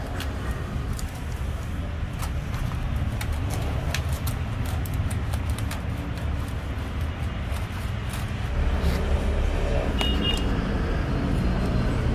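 Scattered light clicks and taps of wire mesh and rubber spline being handled and pressed into a screen frame with a spline roller, over a steady low rumble.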